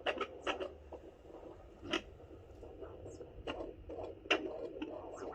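Home fetal Doppler's speaker giving irregular scratchy rubbing and clicks as the probe is slid over the belly in search of the baby's heartbeat, over a faint steady low hum; no regular heartbeat comes through.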